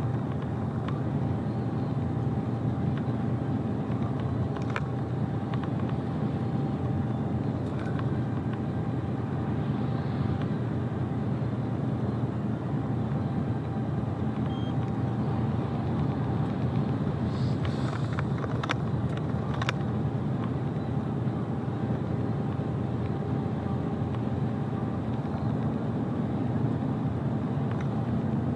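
Truck driving along steadily: an even hum of engine and road noise with a faint steady tone over it, and a few short clicks about two-thirds of the way through.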